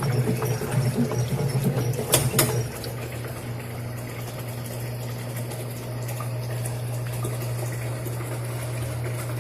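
Electrolux Turbo LTC10 10 kg washing machine running with water moving inside: a steady low motor or pump hum. There is some clatter and a couple of sharp clicks in the first three seconds, then the hum goes on evenly.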